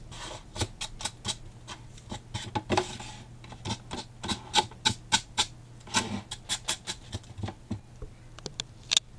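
Fine sandpaper rubbed in quick short strokes, a few a second, along the edges of a cardstock-covered cardboard box, a dry scratching sound, smoothing off the rough edges. A sharp click near the end.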